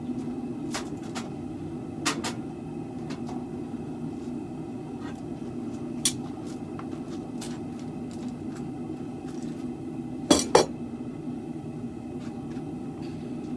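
Hammer striking steel on the sword's tang to straighten it: a few scattered blows, with the two loudest, ringing blows in quick succession about ten seconds in, over a steady low hum.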